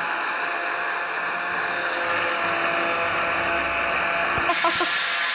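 Angle grinder running with its disc against a metal tin can, grinding it open. About four and a half seconds in, the hiss grows suddenly louder and brighter as the disc bites into the metal.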